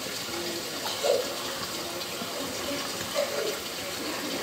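Rice and pigeon peas simmering in a pan of liquid, a steady watery bubbling as a wooden spoon stirs through them, with two brief louder moments about a second in and just past three seconds.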